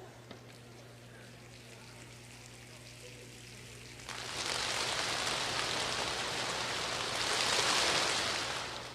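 Audience making a rainstorm with their hands: a faint rustle at first, then about four seconds in a sudden loud rain-like patter of many clapping hands, swelling to a peak near the end before falling away.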